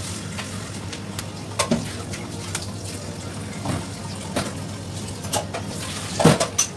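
Scattered clicks and knocks of a knife and hands handling raw fish fillets on a plastic cutting board, the loudest near the end, over a steady low hum.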